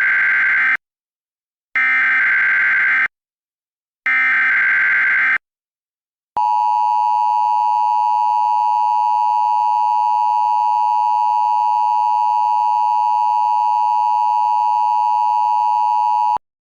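Emergency Alert System tones: three screeching digital data bursts of the SAME header, each about a second and a half long and a second apart, then the two-tone EAS attention signal, a harsh steady dual tone held for about ten seconds that cuts off abruptly near the end.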